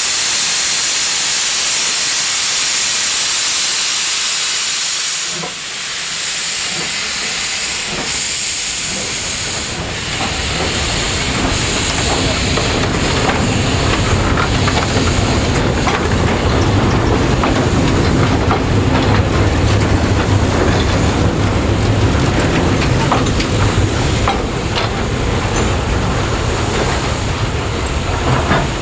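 Steam locomotives of a double-header, a 15CA and a 25NC, with a loud steam hiss for about the first ten seconds, briefly broken twice. Then a low rumble of the train builds and holds, with scattered clicks and knocks.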